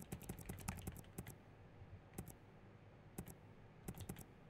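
Faint typing on a computer keyboard: a quick run of keystrokes in the first second or so, then a few scattered keystrokes.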